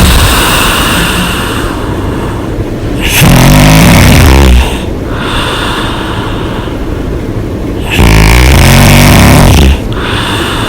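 A woman snoring loudly with her mouth open: two long snores, each about a second and a half, roughly five seconds apart, with breathing between them.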